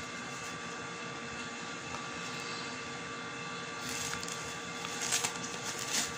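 Steady background hum with a few steady tones, and a few short crinkling rustles in the second half as hands in thin plastic gloves work stuffing into a whole chicken.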